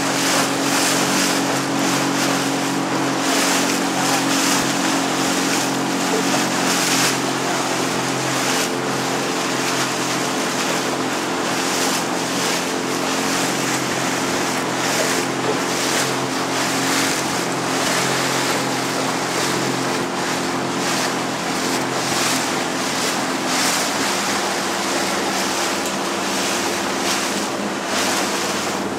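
Small motorboat's engine running steadily underway, its note shifting slightly near the end, with wind gusting across the microphone and water splashing along the hull.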